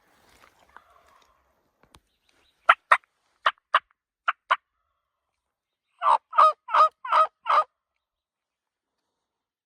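Turkey calling: three pairs of short, sharp clucking notes, then a run of five yelps about a second later.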